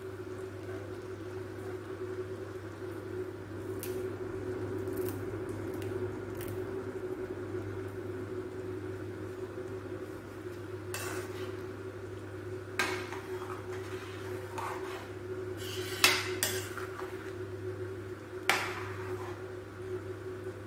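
Metal ladle stirring gravy in a metal pan, with scattered sharp clinks and knocks of the ladle against the pan, the loudest in the second half. A steady low hum runs underneath.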